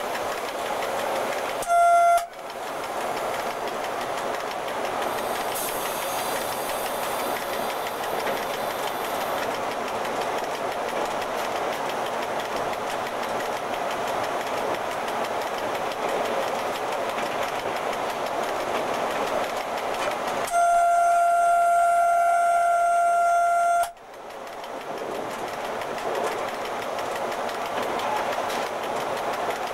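Cab of an FS E.656 electric locomotive running at speed: steady rolling and traction noise, with a short horn blast about two seconds in and a long one of about three seconds later on, each one steady tone.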